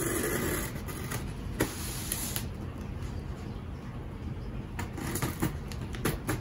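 A cardboard box being opened by hand: a scraping, rustling noise for the first couple of seconds as the tape is cut, then a few light knocks and clicks as the box is handled.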